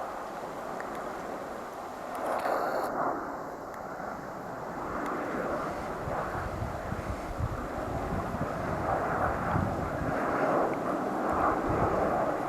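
Airliner engine noise: a steady rushing sound that slowly grows louder, with wind buffeting the microphone in the second half.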